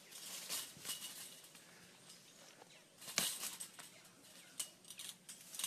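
Faint clinking and scraping of a chain-link fence as an alligator climbs it, its claws catching on the wire mesh, with a sharper metallic clank about three seconds in.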